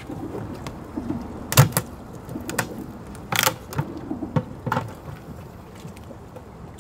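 A crab being broken apart by hand for bait: several sharp cracks of shell snapping, spread irregularly through the first five seconds over a low background rumble.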